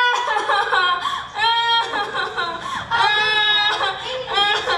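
A young girl's high-pitched theatrical crying: a string of drawn-out wailing sobs that bend up and down in pitch, without words.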